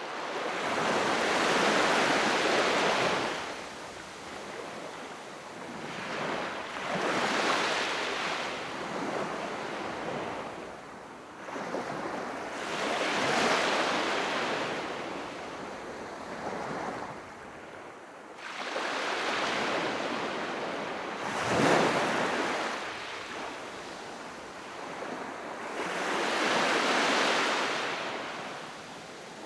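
Calm sea waves washing onto the shore, each one a rush that swells and fades, one every five or six seconds; one a little past two-thirds of the way through breaks more sharply and is the loudest.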